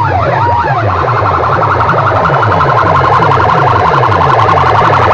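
Stacked banks of horn loudspeakers blasting a very loud siren-like electronic effect: rapidly repeating falling sweeps, about three or four a second, with a wavering tone over them in the first second.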